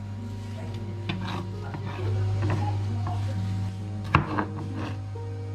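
Kitchen utensils knocking and scraping on a wooden cutting board and dishes during food preparation, with a sharp knock about four seconds in.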